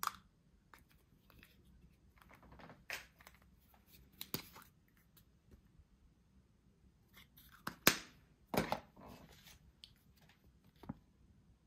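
Kinder Surprise chocolate eggs being unwrapped and opened by hand: the foil wrapper crinkling and tearing in short bursts, with several sharp clicks and snaps, the loudest about eight seconds in.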